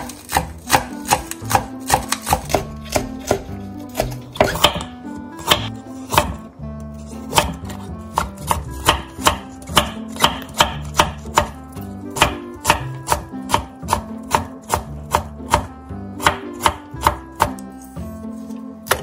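Kitchen knife chopping vegetables on a wooden cutting board: a steady run of sharp knocks, about two to three a second, as carrot and green vegetables are cut small.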